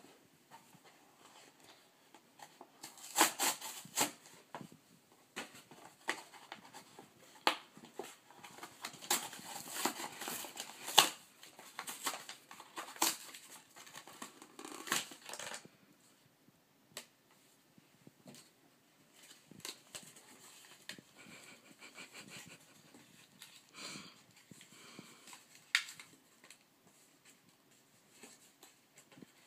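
A cat rolling and clawing at a padded paper mailer on carpet: rustling with sharp crinkles and snaps, busy for the first half and quieter scuffling after that, with one more sharp snap near the end.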